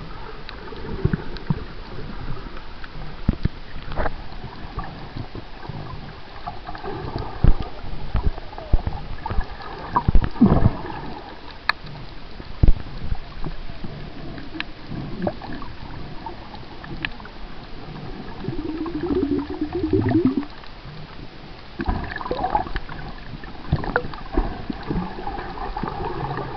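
Muffled underwater sound from a camera held below the surface: water sloshing and gurgling, with scattered sharp clicks and knocks.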